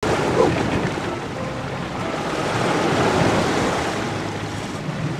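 Sea waves washing and splashing against rocks and concrete tetrapods, a steady rushing surf sound, with wind buffeting the microphone.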